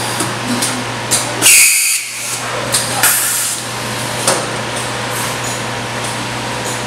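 Tube-film packing machine with a linear weigher running: a steady machine hum with sharp clicks and short hisses, the loudest hiss about a second and a half in and another about three seconds in.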